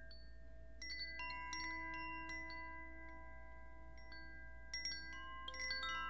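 Chimes ringing: scattered struck tones of many different pitches that ring on and overlap. They are sparse at first, grow thicker from about a second in, and thicker again near the end.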